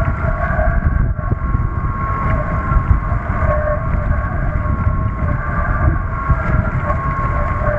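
F101 foiling trimaran sailing fast on its hydrofoils: a steady, high whine of several tones from the foils cutting through the water, over heavy wind buffeting on the microphone and the rush of water.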